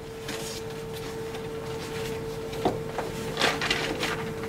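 Paper rustling as a manila file folder is opened and its papers handled, busiest in the last second or so, with one sharp click a little past halfway. A steady faint hum runs underneath.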